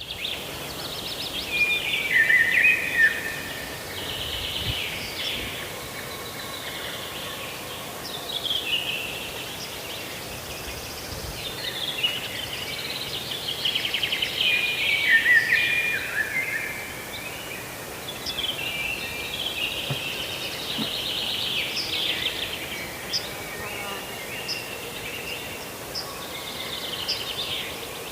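Goslings peeping: many high, overlapping chirps and short falling calls, some trilled, going on without a break.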